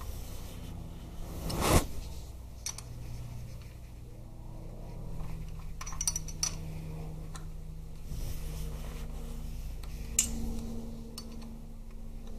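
Scattered metallic clinks and taps of a hex key working the clamp bolt of a Harley-Davidson gear shift lever, the loudest clink about two seconds in, over a low steady hum.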